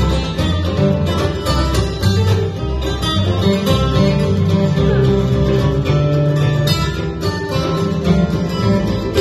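Bluegrass band playing live on fiddle, acoustic guitar, mandolin and upright bass, an instrumental passage with no singing.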